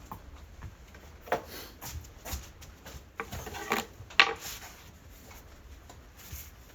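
Scattered clicks, knocks and short scrapes of hard objects being handled, several separate strikes with brief rasping smears, the loudest about four seconds in.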